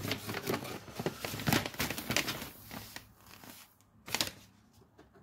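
Cardboard box flaps and packing tape rustling and scraping as hands open a box, dying down about halfway, with one short knock near the end.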